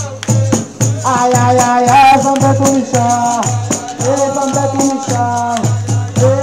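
Live capoeira music: singing over a berimbau, with the shaking of a caxixi rattle and regular low beats of percussion.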